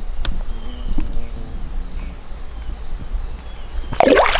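A steady, high-pitched insect chorus of crickets or katydids, with faint falling chirps above it early on. Just before the end there is a brief, loud rushing noise.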